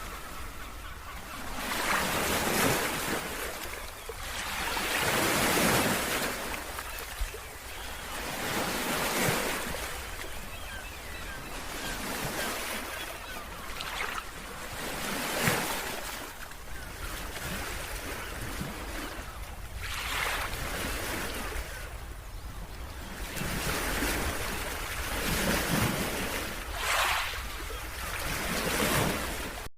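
Ocean surf: waves breaking and washing in, the sound swelling and falling away every few seconds.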